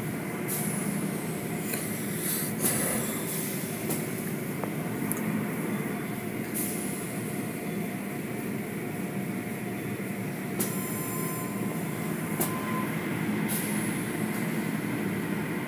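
Automatic tunnel car wash heard from inside the car: a steady rumble of the wash machinery and water, with short bursts of hissing spray striking the car.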